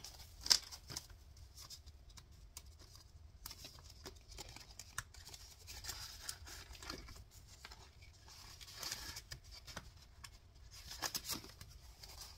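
Paper dollar bills rustling as they are handled and slid into a zippered plastic binder pouch, with scattered small clicks and one sharper click about half a second in.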